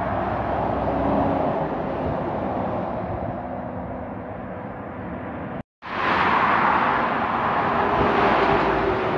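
Highway traffic: a lorry passing below, its engine and tyre noise swelling and then fading away. Just over halfway through the sound cuts out for an instant and comes back louder as another vehicle passes close, with a faint steady hum underneath.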